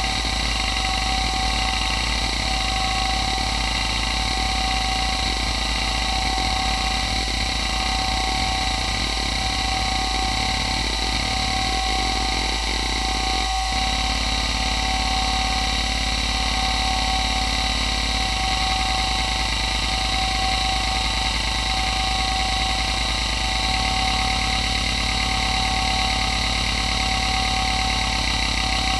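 Toshiba MK2024FC 86 MB glass-platter hard drive running a head-seek test: a steady spindle whine over the chatter of the heads seeking. The seek pattern changes abruptly about halfway through and again later. The owner says its bearings are not the best.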